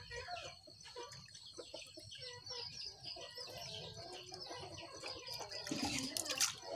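Water swished and stirred by hand in a plastic basin while liquid is poured in from a bottle: microbial solution being diluted in water. Birds call in the background, and a louder burst of noise comes near the end.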